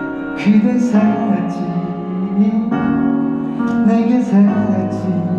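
A singer performing a slow song with piano accompaniment, holding long sung notes over sustained piano chords.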